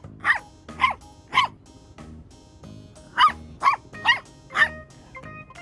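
A dog barking in quick, sharp barks about half a second apart: three, a short pause, then four more.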